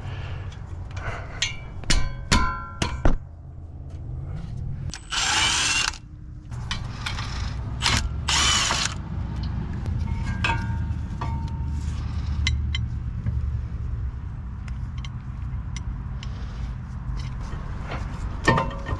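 Metal clicks, clinks and knocks of hand tools and brake parts as the brake caliper bracket and rotor come off a wheel hub, with two loud rushing bursts, each about a second long, around five and eight seconds in.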